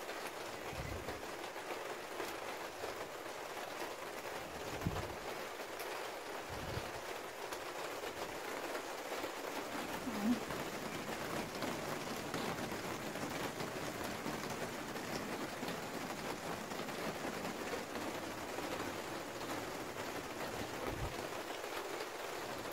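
Steady rain falling on the garden, an even hiss throughout, with a few soft low thumps.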